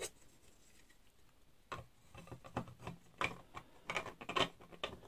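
Irregular light clicks and taps of 3D-printed plastic parts being handled and fitted together, starting about a second and a half in.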